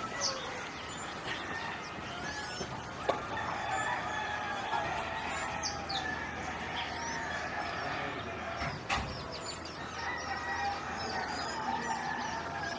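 Roosters crowing several times over a background of small birds chirping and whistling, the ambience of a rural village.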